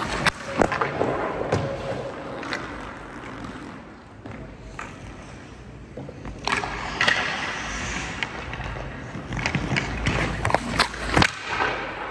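Ice hockey practice on a rink: skate blades scraping and carving the ice, with sharp clacks of stick on puck and puck against goalie gear, several in quick succession near the end.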